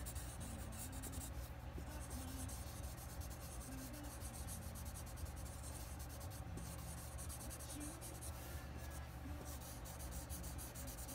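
Graphite pencil scratching faintly on drawing paper in small circular shading strokes.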